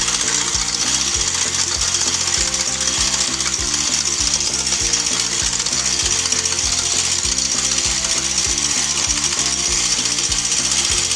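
Electric hand mixer running steadily, its beaters whipping egg whites, over background music with a steady beat.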